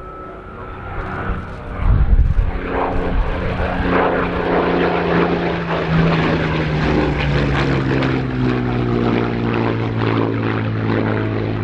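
Hawker Hurricane's Rolls-Royce Merlin V12 engine and propeller on a fly-past. The engine grows loud about two seconds in, then holds a steady note whose pitch slowly falls as the fighter passes.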